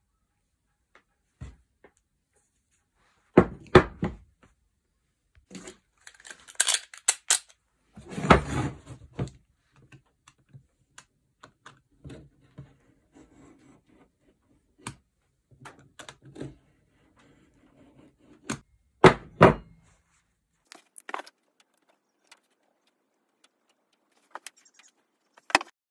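A rusty all-steel hatchet being handled on a wooden plank table: scattered knocks and thunks as it is set down and turned over, with softer scraping and rustling between. The loudest knocks come a few seconds in, around the eight-second mark and again late on.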